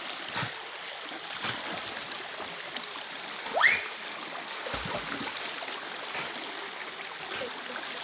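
Shallow creek water running steadily over rock, with light splashes. About three and a half seconds in, a short, loud, rising whistle-like call cuts through.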